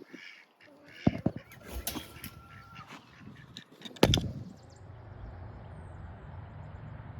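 Chickens calling, with a sharp knock about a second in and a louder one about four seconds in, followed by a steady low background noise.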